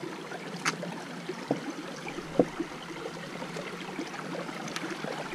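Small, shallow forest stream running and trickling over rocks, a steady rush of water, with a few light knocks, the sharpest about two and a half seconds in.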